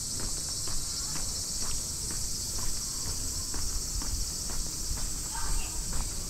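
A steady high-pitched chorus of insects, with footsteps about twice a second.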